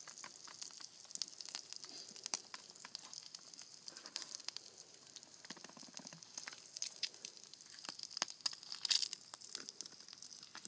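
Food frying: a steady sizzle with many small pops and crackles.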